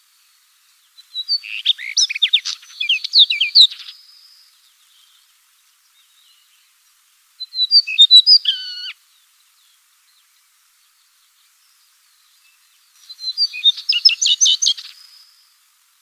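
A songbird singing three phrases of quick, varied high notes, each one to three seconds long, with pauses of about three to four seconds between them.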